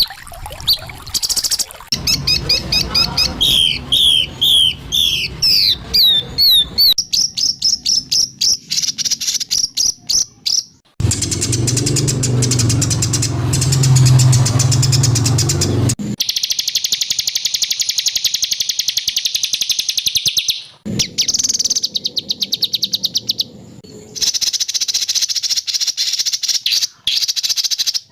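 White-rumped shama (murai batu) song in harsh, rapid phrases, spliced from several recordings: a run of falling whistled notes, then fast repeated notes and a long dense high trill. Each section breaks off abruptly where one recording cuts to the next.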